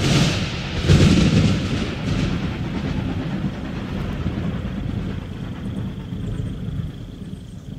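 Train rumbling past as a recorded sound effect closing a rap track: a noisy rush that starts suddenly, swells again about a second in, then fades out slowly. A faint steady high tone comes up beneath it in the second half.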